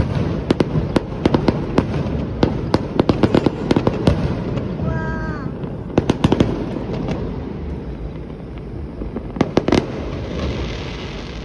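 Fireworks display: volleys of sharp bangs and crackles from exploding shells, thickest in the first four seconds and again around six and ten seconds in, over steady background noise.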